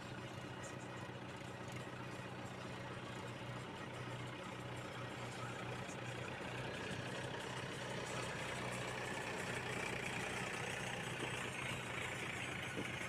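Powertrac Euro 41 Plus tractor's diesel engine running, growing louder as it drives up close.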